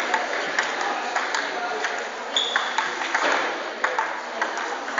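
Table tennis balls being hit in rallies: quick, sharp clicks of celluloid ball on paddle and table, several a second and irregular, from more than one table at once, over a murmur of voices.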